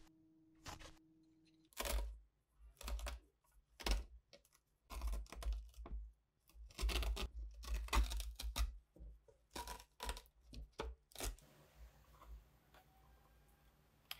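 A couple of scissor snips, then old, coarse burlap fabric being ripped off a wooden board by hand in repeated rough tearing strokes. The tearing stops about eleven seconds in.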